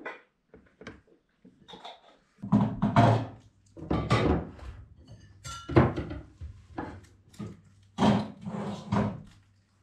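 Irregular thuds and clunks of a wooden breadboard and bread knife being handled on a dining table, with a brief ringing clink of crockery about halfway through, over a low steady hum.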